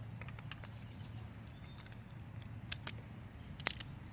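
A few light clicks and taps, loudest one about three and a half seconds in, over a faint steady outdoor hum, with brief faint bird chirps about a second in.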